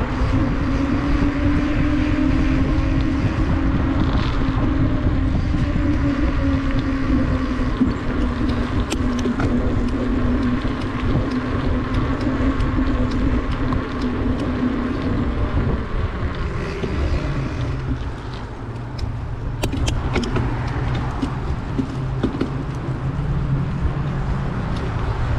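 Wind buffeting the microphone of a camera on a moving bicycle, a steady rumble, with a steady hum that drops lower about two-thirds of the way through.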